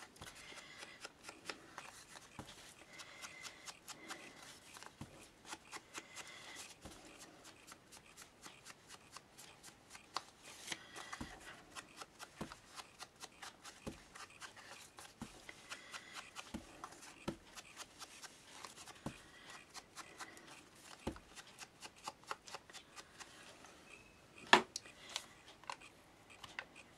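Ink blending tool dabbed and rubbed along the edges of a card tag and loaded from an ink pad, a quick, irregular run of faint soft taps and scuffs. One sharper click near the end.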